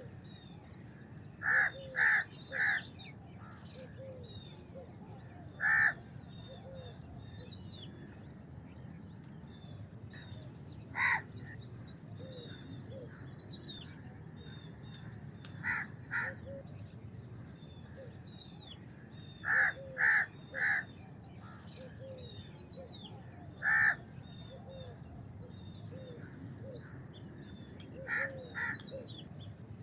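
House crows cawing in groups of one to three caws, about seven times over the stretch, over constant twittering of small birds and a steady background noise.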